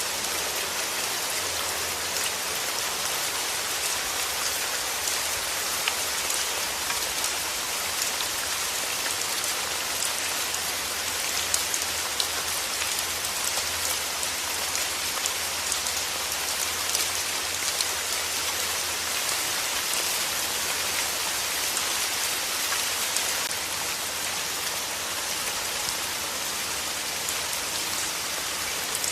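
Steady rain falling: an even hiss made up of many separate drop ticks.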